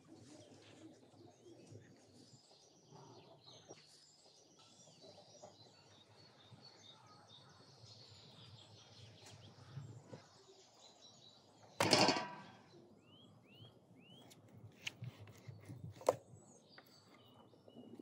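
Small birds chirping, with short repeated upward-curving chirps near the end. A single short loud sound comes about twelve seconds in, and a few light knocks follow a few seconds later.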